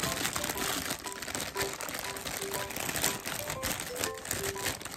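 Plastic packaging crinkling as hands work a small figure out of a clear bag, over background music with a simple melody of short notes.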